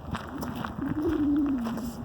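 Wind buffeting the microphone during a walk outdoors, with a drawn-out tone that slides slowly lower in pitch through the second half.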